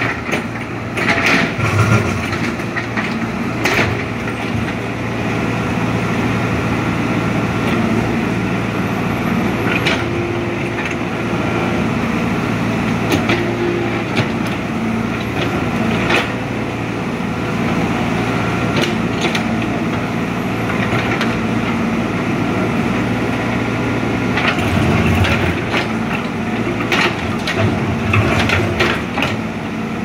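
JCB 3DX backhoe loader's diesel engine running steadily under load as the backhoe arm digs, the bucket scraping through soil and stones, with sharp cracks and clunks now and then.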